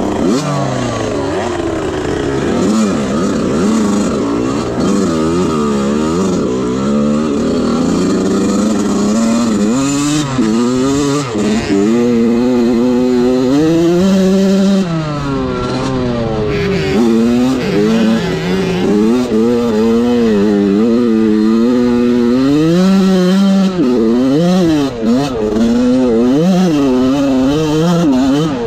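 Dirt bike engine ridden hard off-road, its pitch climbing and dropping again and again with throttle and gear changes. In the first several seconds a second bike's engine overlaps it.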